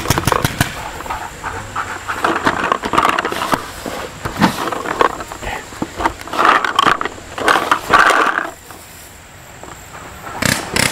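Sharp pops of paintball markers firing, mixed with rustling and scraping of a player's gear as he moves over grass, with a quieter spell shortly before the end.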